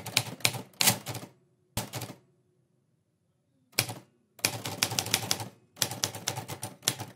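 Rapid typing: quick runs of sharp key clicks, broken near the middle by a silent pause of about a second and a half.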